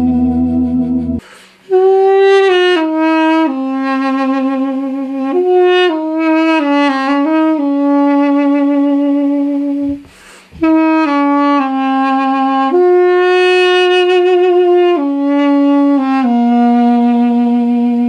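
Duduk playing a slow solo melody of long held notes with small ornaments, over a steady low drone. A sustained low chord ends about a second in, just before the melody begins, and the melody pauses briefly about ten seconds in.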